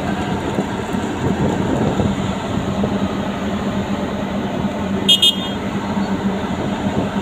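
Steady low rumble with a constant hum as cars are driven off a ro-ro car-carrier ship down its steel stern ramp. About five seconds in there is a short, high double beep.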